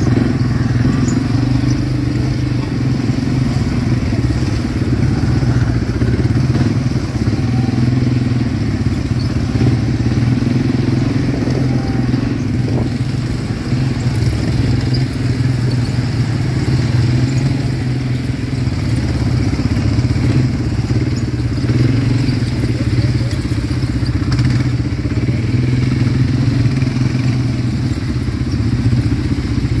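ATV engine running steadily under way, its pitch wavering a little with the throttle.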